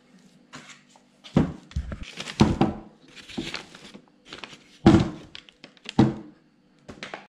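A Peugeot/Citroën HDi diesel starter motor being handled and set down on a paper-covered workbench: a string of knocks and thunks with paper crinkling, the two loudest knocks a little after halfway. A faint steady hum lies underneath.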